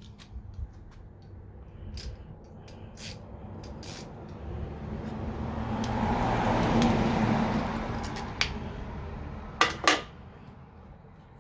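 Scattered metal clicks and clanks of hand tools working on a small-engine carburetor, with a sharp double knock near the end. In the middle a broad rushing noise swells and fades over about four seconds and is the loudest sound.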